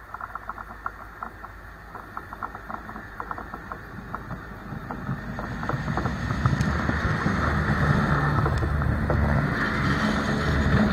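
Diesel locomotive of a work train approaching and rolling directly over the trackside microphone, its rumble building over the first half and staying loud as it passes overhead. A patter of sharp rapid ticks is heard before the rumble takes over.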